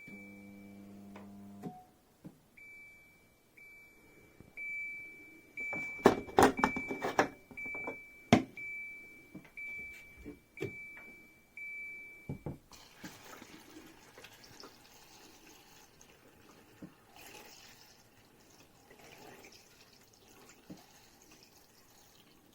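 Short low buzz, then a high electronic tone broken about once a second, with clattering knocks about six to eight seconds in. About twelve seconds in, steady water running starts and carries on to the end.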